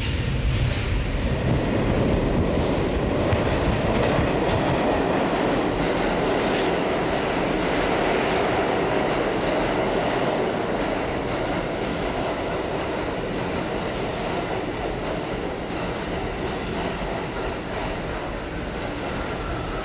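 New York City subway train approaching and running fast past the platform of an underground station, a continuous loud noise of steel wheels on rails that eases slightly in the second half.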